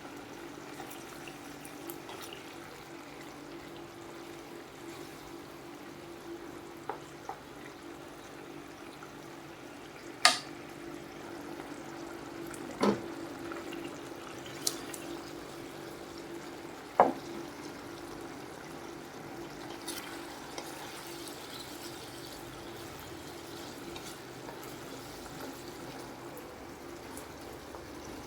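Kitchen cooking sounds: a steady hiss over a low hum, broken by a handful of sharp utensil clinks. The loudest clink comes about ten seconds in, with others near thirteen and seventeen seconds.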